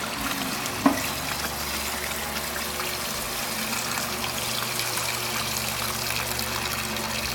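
Water pouring and trickling steadily, over a low steady hum, with one sharp click about a second in.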